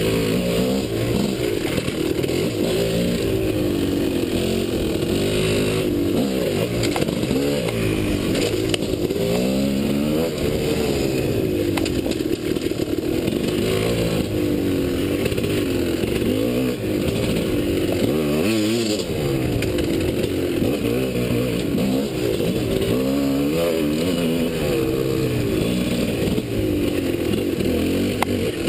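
Dirt bike engine revving up and down over and over, its pitch rising and falling every second or two as the rider works the throttle along a twisty trail.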